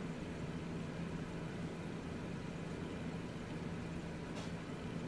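Steady low hum of background room noise, with one constant low tone and no distinct events.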